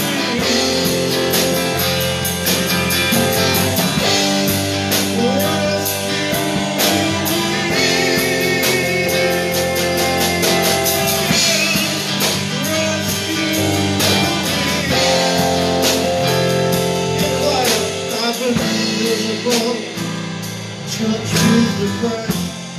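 Live blues band playing: electric and acoustic guitars over bass guitar and a drum kit keeping a steady beat on the cymbals.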